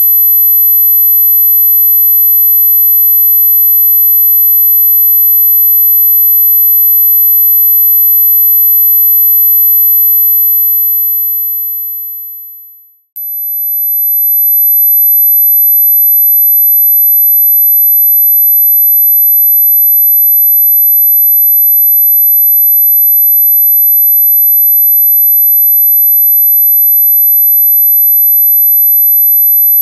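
A steady pure 12 kHz sine tone of the kind played for tinnitus masking. About ten seconds in it fades away over a few seconds, breaks with a slight click, then fades back up within two seconds and holds steady again.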